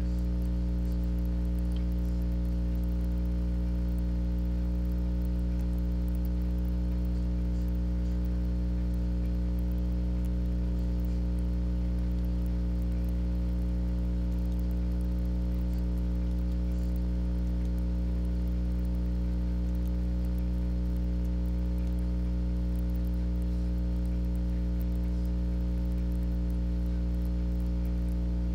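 Steady electrical mains hum with a stack of overtones and a faint hiss, unchanging throughout.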